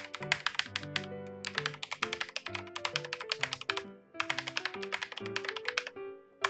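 Fast typing on a Xenics Titan Mark 7 mechanical keyboard with clicky Cherry MX Blue-style switches, in three quick runs of keystrokes with short pauses between them. Background music plays underneath.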